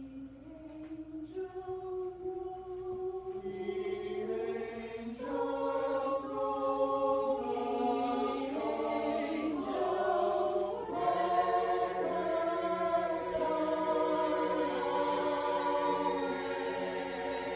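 A choir singing held notes, thin at first and growing fuller and louder about four seconds in.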